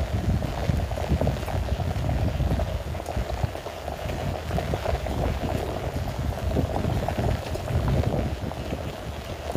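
Heavy rain falling on grass and a wet dirt path, a steady hiss with a low rumble and countless small drop ticks, together with footsteps of someone walking on the wet path.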